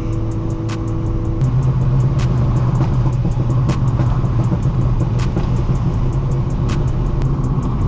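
2010 Audi A4's turbocharged 2.0-litre four-cylinder, with catless downpipe and AWE track exhaust, running steadily while driving; the engine note rises slightly about a second and a half in. Scattered sharp pops from the crackle tune sound throughout.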